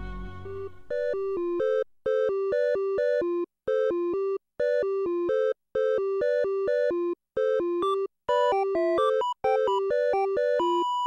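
Background music: a slow song fades out, and about a second in a simple electronic melody starts, with short synth notes bouncing between a few pitches and broken by brief gaps.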